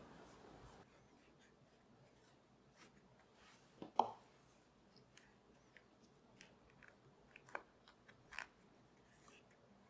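Quiet handling of leather: a few short taps and rustles as a piece of black chrome-tanned lining leather and a piece of vegetable-tanned leather are laid and pressed together, the sharpest tap about four seconds in.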